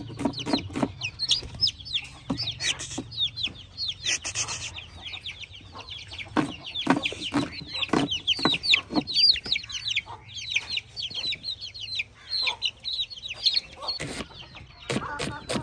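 Chicks peeping without pause, a dense run of short, high, falling peeps. Under them, a knife chops through onion onto a wooden cutting board in scattered sharp knocks.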